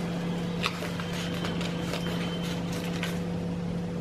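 Paper pages and tags of a handmade junk journal being turned and handled, giving a few soft rustles and light ticks, over a steady low hum.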